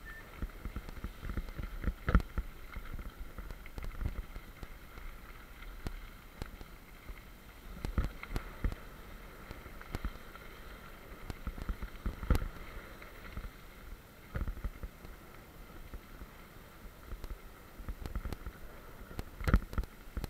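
Mountain bike rolling down a gravel trail: a steady crunch and rumble of tyres on gravel, with irregular knocks and rattles from the bike over bumps and a few sharper clunks.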